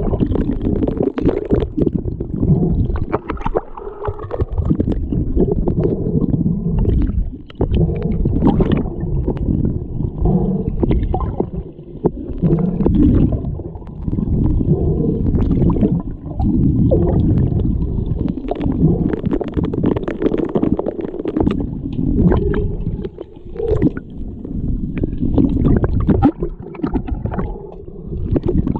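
Muffled rumbling and gurgling water of a pool during an underwater hockey game, broken by many sharp clicks and knocks.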